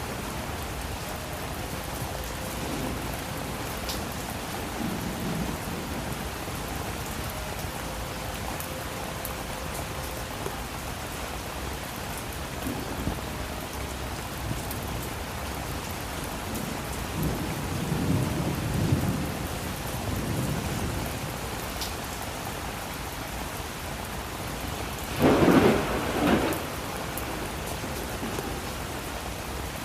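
Steady rain with thunder: several low rumbles of thunder through the middle, then a louder, sharper clap of thunder near the end lasting about a second and a half.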